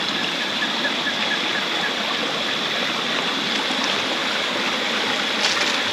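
Stream running steadily, an even rushing hiss, with a thin steady high tone above it.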